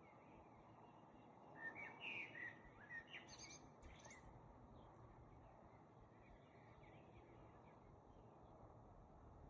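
Songbirds chirping over a steady low background hiss, with a quick run of loud chirps and short calls about two to four seconds in, then only a few faint chirps.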